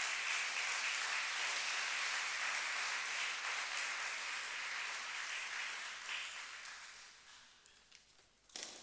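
Audience applauding, the clapping fading away about seven seconds in. A brief thump near the end.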